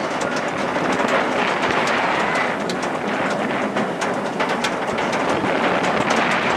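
Roller coaster train climbing its lift hill: a steady mechanical rattle of the lift with many irregular sharp clicks.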